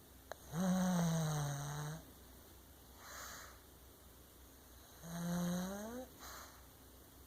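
A sleeping pug snoring: two loud, pitched snores about four seconds apart, the first sagging slightly in pitch and the second rising, with softer breathy snuffles between them.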